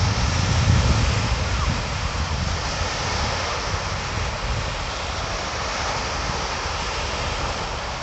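Small waves breaking and washing up a shingle beach, with wind buffeting the microphone, heaviest in the first couple of seconds.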